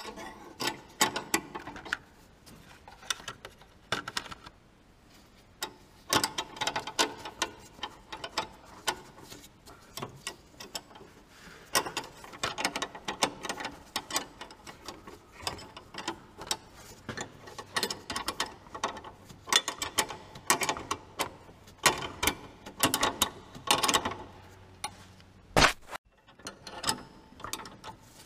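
Ratcheting spanner clicking in quick runs with short pauses between strokes as the lower nut of a drop link is worked loose, with one sharper metallic knock near the end.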